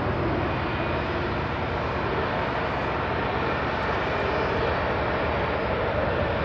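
Jet airliner after touchdown, heard as a steady, even rumble and hiss of engine noise from a distance.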